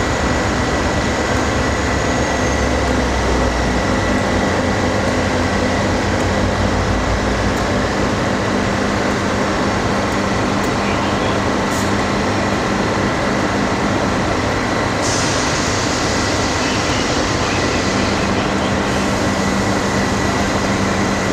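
V/Line diesel-electric locomotive's engine running steadily at a constant speed, a low even hum under a broad rumble. A high hiss joins about fifteen seconds in.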